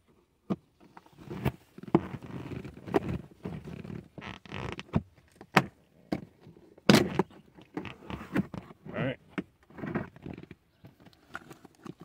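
Lower B-pillar plastic trim panel being pulled off, with a series of sharp clicks and knocks as its retaining clips let go, and plastic rubbing and scraping between them. The loudest snap comes about seven seconds in.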